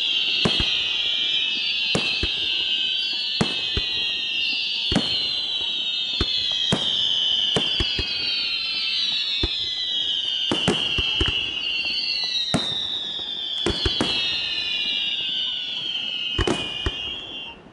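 Fireworks display: a steady stream of overlapping high whistles, each gliding down in pitch, cut through by sharp bangs of bursting shells about every second or two. The whistling stops suddenly near the end.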